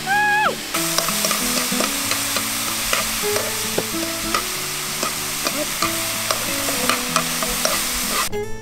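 Noodles sizzling in a frying pan on a portable gas burner as they are stirred and tossed with chopsticks, with scattered clicks of the chopsticks against the pan. The sizzle starts about a second in and cuts off suddenly just before the end.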